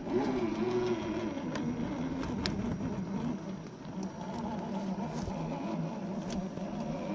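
Scale RC crawler (Axial SCX10 II) driving: its electric motor and gears whine, the pitch wavering with the throttle, with scattered clicks and ticks. The sound starts suddenly.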